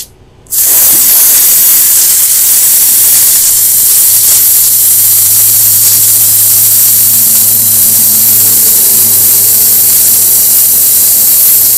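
High-pressure water jet from a Dekton DK-HPW3500W industrial pressure washer blasting hardened cement crust off a brick block: a loud steady hiss that starts about half a second in. A low steady hum joins it underneath from about three seconds in.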